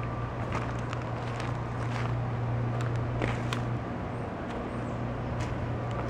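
A steady low engine-like hum, with scattered light clicks and crackles over it.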